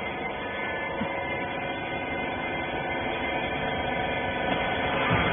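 Hydraulic rag baler running with a steady hum of several tones, growing slightly louder toward the end.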